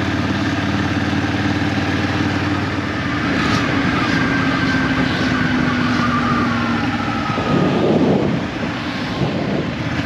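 Ducati motorcycle engine running under way, with wind noise. The engine note holds steady, then falls gradually from about three to seven seconds in as the bike slows, and a burst of wind rush follows about eight seconds in.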